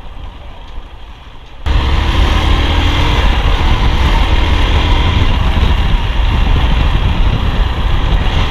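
Motorcycle riding at speed: wind rushing over the rider's camera microphone, with engine and road noise beneath. It turns suddenly much louder about two seconds in and then holds steady.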